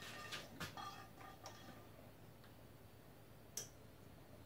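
A few faint, light clicks and taps from hands placing pecan halves onto brownie batter in a foil pan: several in the first second and a half, one sharper click near the end, otherwise a quiet room.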